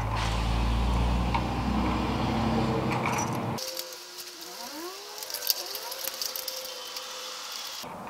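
Hands working copper wire and a light switch: small metallic clicks and rattles as the wire ends are bent into hooks and fitted to the switch terminals. A steady low hum runs underneath for the first few seconds, then cuts off abruptly about three and a half seconds in, leaving fainter scattered clicks.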